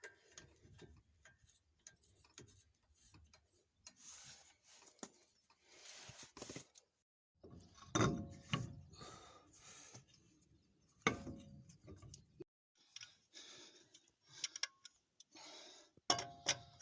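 Hand tools at work on a truck's front wheel hub: ratcheting clicks and scraping, with several sharp metal knocks. The sound drops out completely twice, as between cut-together clips.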